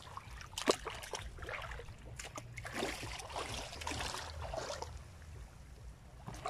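Shallow sea water splashing and sloshing as a crab trap is worked by hand, under a steady low rumble, with a sharp knock a little under a second in.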